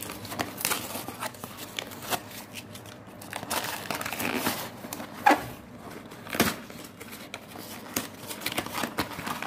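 Haleem-mix packaging torn open by hand and handled, with irregular crinkling and rustling and scattered sharp crackles and snaps, a little louder in the middle.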